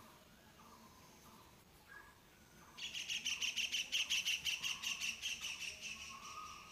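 A bird chirping: a fast, even run of repeated high chirps starts about three seconds in and carries on to near the end, with fainter short calls before it.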